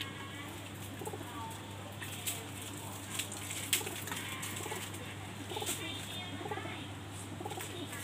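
Domestic pigeons cooing in repeated low, rolling phrases, with a few sharp clicks midway, over a steady low hum.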